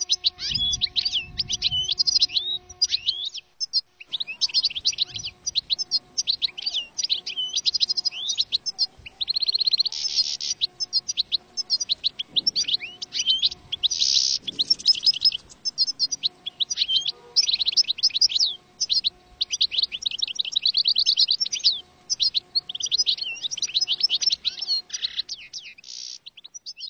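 European goldfinch song: fast, liquid twittering and trilled phrases in quick succession, broken by short pauses.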